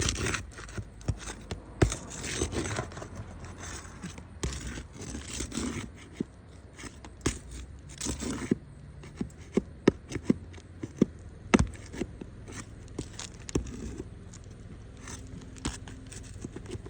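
Scraping and sharp clicks of a tool working under a shingle to pull out its nails, with irregular knocks, denser scraping in the first half.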